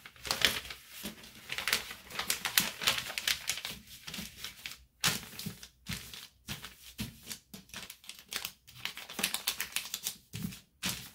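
Butcher paper rustling and crinkling inside a cotton infant bodysuit as hands smooth and flatten the fabric over it. It comes as a quick run of short scratchy rustles, pausing now and then.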